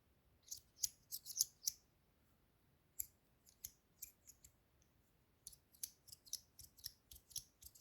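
KukoEdc Ergo Simple stainless steel fidget slider being slid back and forth, its plates rubbing against each other with short, light, high-pitched metallic scraping swishes. The strokes come in groups, with a quick run of them near the end.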